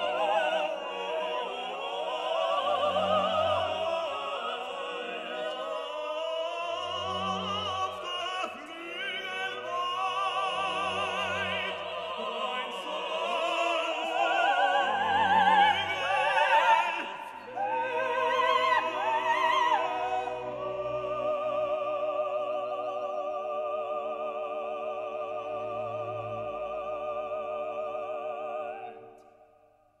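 Operatic singing with a wide vibrato over an orchestra. About two-thirds through, the voice gives way to a long held orchestral chord that fades out near the end.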